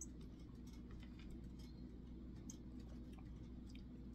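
Faint, irregular light clicks over a low steady hum.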